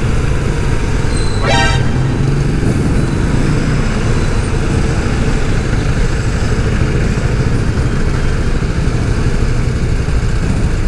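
Ride-along sound of a motor scooter in slow city traffic: steady engine and road rumble. A short horn beep sounds about a second and a half in.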